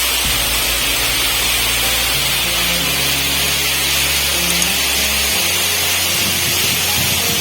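Background music with held low notes that change every second or two, over a steady rushing hiss.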